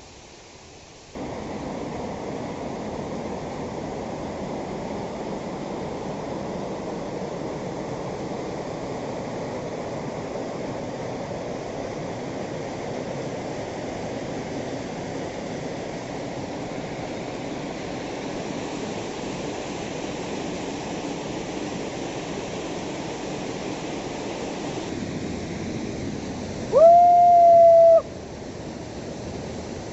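Waterfall rushing steadily, starting abruptly about a second in. Near the end a single loud held tone rises and then holds for about a second before stopping.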